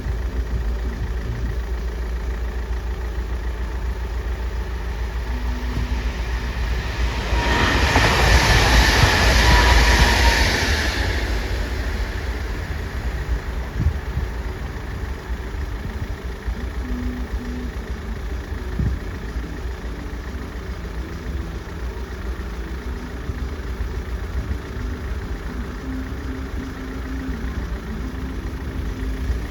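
Train running past a railway level crossing: a steady rumble throughout, with a louder rushing surge from about seven to eleven seconds in.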